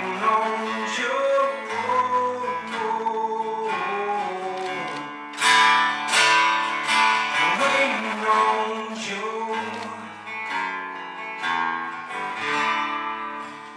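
Acoustic guitar strummed in a live country song, the chords struck harder and brighter from about five and a half seconds in.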